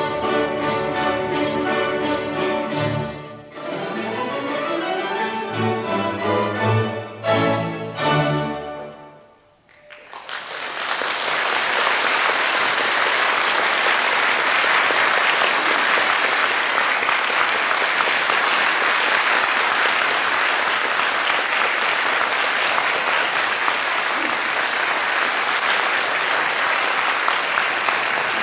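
A mandolin orchestra of mandolins, guitars and double basses plays the final bars of an overture: a held chord, a rising run and two short closing chords. After a brief pause, the audience breaks into steady applause that lasts for the rest of the time.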